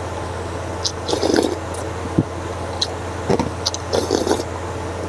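A person eating noodle soup: several wet slurps and mouth sounds of taking noodles and broth off a spoon, with two short knocks, over a steady low hum.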